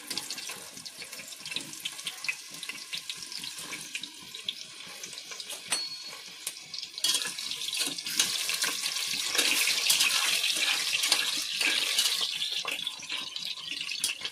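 Peeled potato pieces sizzling and crackling as they fry in hot oil in a stainless steel pressure cooker pot; the sizzle grows louder about seven seconds in.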